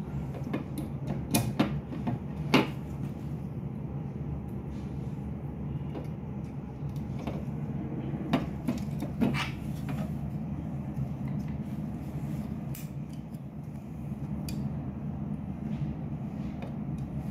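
Scattered sharp clicks and taps of hard plastic as the laser printer's plastic scanner unit and its parts are handled and pressed into place, the loudest in the first few seconds and again about eight to nine seconds in. A steady low hum runs underneath.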